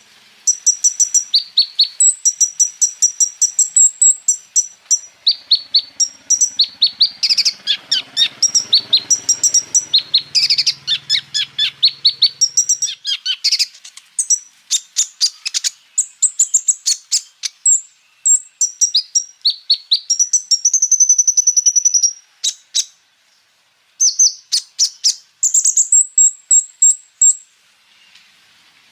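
A kolibri ninja sunbird (konin) singing a fast, high-pitched chattering song of rapid repeated chirps and trills, in the 'full isian' style that mixes in phrases copied from other birds. The song breaks off for about a second a little past two-thirds of the way, then resumes.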